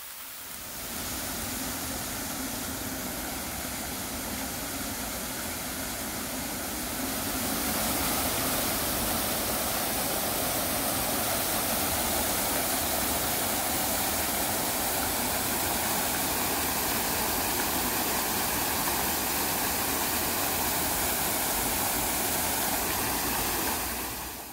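Artificial park waterfalls pouring into pools: a steady rush of falling water. It grows louder about seven seconds in and fades out at the end.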